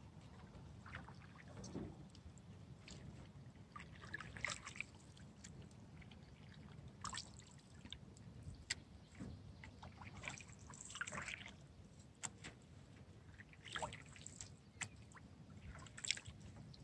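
Canoe paddling on calm water: faint paddle strokes with small splashes and drips about every two to three seconds.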